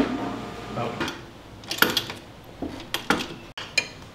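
Scattered metallic clinks and clicks of hand tools on bolts and battery and motor terminals: a handful of sharp, separate knocks spread over a few seconds.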